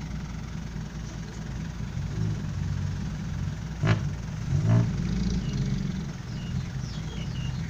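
Isuzu Rocky dump truck's diesel engine running steadily at low revs, with two brief louder sounds about four and five seconds in.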